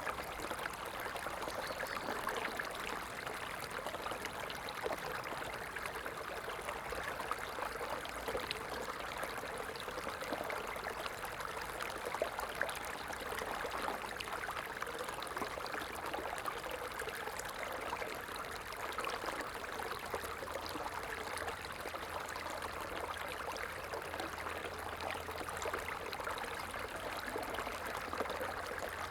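Running water: a stream flowing and trickling steadily with a fine splashing babble.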